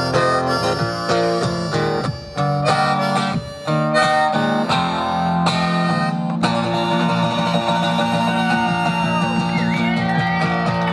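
Harmonica solo played into a vocal microphone over a strummed acoustic guitar, in a blues-tinged live song. The harmonica plays short phrases with brief gaps in the first half, then longer held notes with a few bent notes near the end.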